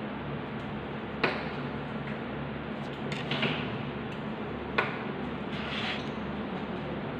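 Hands handling paper craft pieces and small tools on a tabletop: two sharp taps about three and a half seconds apart and a couple of brief paper rustles, over a steady low hum.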